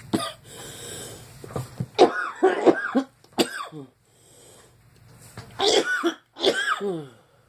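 A person coughing in fits: a run of quick coughs about two seconds in, then two longer coughs near the end. The coughing comes from an allergic tickle in the throat.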